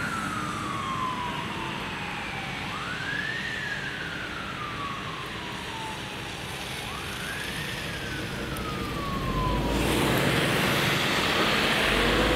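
Fire engine siren sweeping up quickly and falling slowly, about every three and a half seconds, three times. About ten seconds in it gives way to a louder steady rushing noise.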